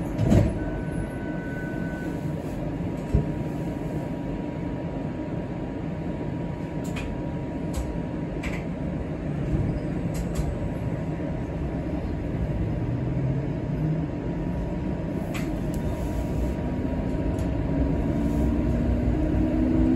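Interior of a TTC Flexity Outlook streetcar: steady rumble with a thin high hum and a few knocks while it stands, then the electric traction motors whine, rising in pitch, as it pulls away in the second half.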